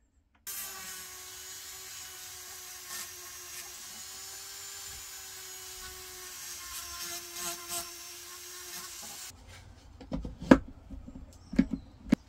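A Dremel-type rotary tool runs at a steady whine while its small bit grinds inside the eye of a hammer head, scraping louder now and then. It stops about nine seconds in, followed by a few sharp knocks and clicks as a clamp is fitted to a bench belt sander.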